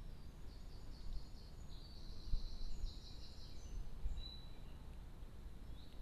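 A bird calling in a series of high-pitched chattering trills for about the first four seconds, over a steady low rumble.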